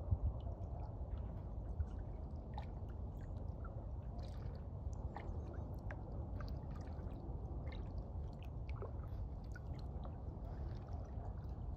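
Kayak gliding on calm water: faint scattered drips and small gurgles of water from the paddle and along the hull, over a low steady rumble.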